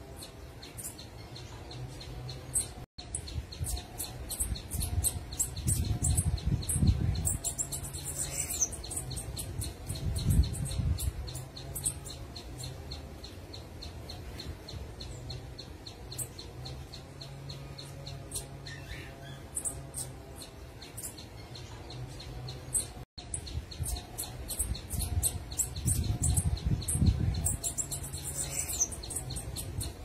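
Orange-headed tanager (saí-canário) calling: a steady run of short, high, thin chirps, several a second, thickening twice into denser twittering. Low rumbling comes and goes underneath.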